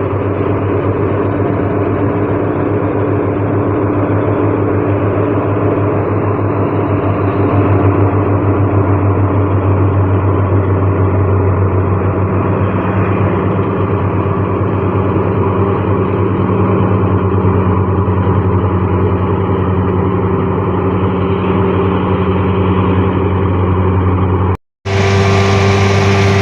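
New Holland combine harvester at work, its engine and threshing and straw-chopping machinery running steadily. Near the end the sound breaks off for an instant and comes back brighter.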